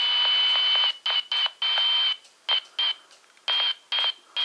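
A Baofeng UV-B5 handheld's speaker plays a received 2-metre signal: a steady high whistle-like tone over hiss. About a second in, it starts cutting in and out in short choppy bursts. The operator takes the signal for a satellite, though he has also wondered whether it is interference.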